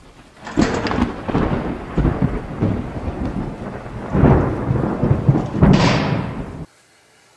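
Thunderstorm sound effect: heavy rain with several loud thunder claps, cutting off abruptly near the end.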